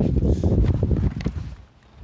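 Handling noise from a boxed toy blaster being picked up and opened: irregular knocks and bumps against the packaging, dying away about a second and a half in.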